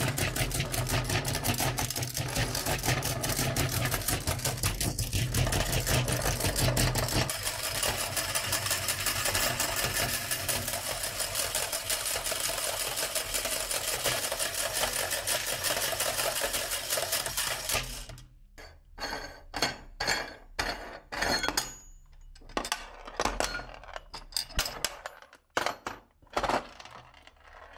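Electric meat grinder running and crushing glass marbles: a dense, rapid crackle of breaking glass over the motor's steady hum. About eighteen seconds in the grinding stops, leaving scattered clinks and knocks of glass pieces.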